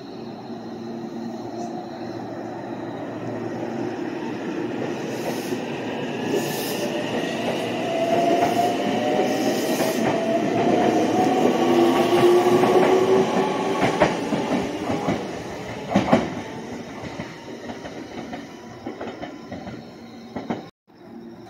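Meitetsu electric train running past, its wheels rumbling on the rails and growing louder to a peak partway through, while its motors whine with a pitch that rises over several seconds as it gains speed. Two sharp knocks come near the loudest part, then the sound fades and cuts off abruptly near the end.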